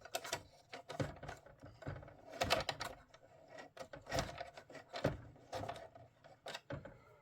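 Irregular clicks and knocks, about one or two a second, from plastic parts of the opened boombox being handled.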